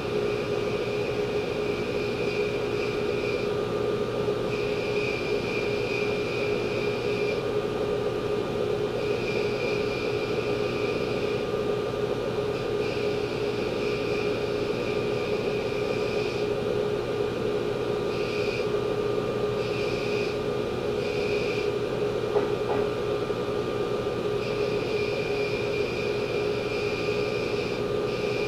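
Belt grinder running with a steady hum while the corners of a steel forging die are ground against its belt. The higher grinding hiss comes and goes in repeated passes of a few seconds as the piece is pressed on and lifted off.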